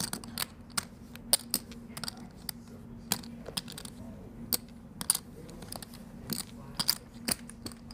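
Clay poker chips clicking against each other as a player handles his chip stacks: irregular sharp clicks, several a second.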